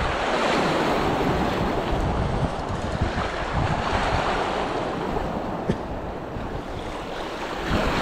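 Choppy sea washing against the rocks, with wind buffeting the microphone. A single sharp click comes a little past halfway, and the water swells louder near the end.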